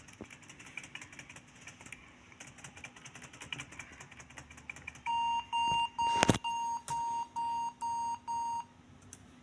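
HP laptop's system speaker beeping at startup: a run of about eight short, even-pitched beeps, about two a second, starting about five seconds in, while F10 is pressed to enter the BIOS setup. Faint rapid key tapping comes before the beeps, and a single sharp click sounds during them.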